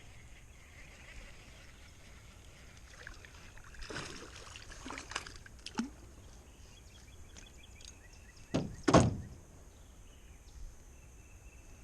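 Scattered knocks and clicks on a small fishing boat, the loudest a pair of hollow thumps about nine seconds in, over a low steady background.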